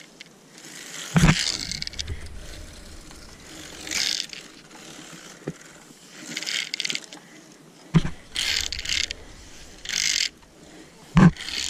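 Zip-line safety hardware, metal clips and a pulley trolley, scraping and clinking along the steel cable in several short runs of about a second each, with three sharp knocks.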